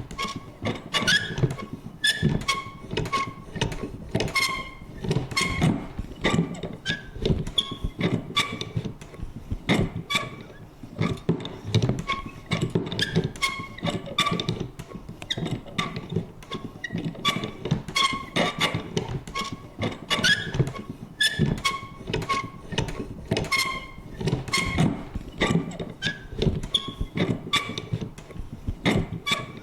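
Vintage paper punch worked over and over: a dense, irregular run of clicks and thunks, with short squeaky creaks from the mechanism recurring every second or so.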